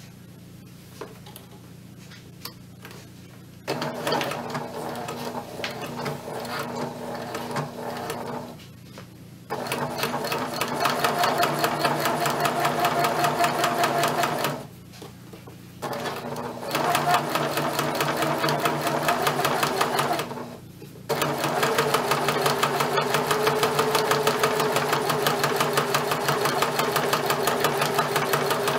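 Electric domestic sewing machine running a straight stay stitch through fabric. It starts about four seconds in and sews in four stretches with brief stops between them, the first stretch slower and quieter, the rest at a fast, even needle rhythm.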